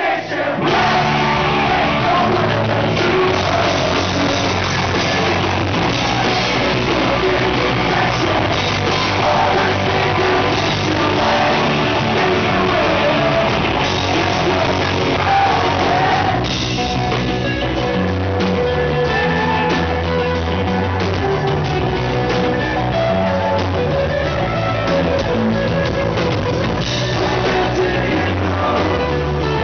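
A rock band playing live, heard from the audience: electric guitars, bass guitar and drum kit, with a voice singing at times. The full band comes in right at the start, and about two-thirds of the way through it drops back to a sparser part led by the bass.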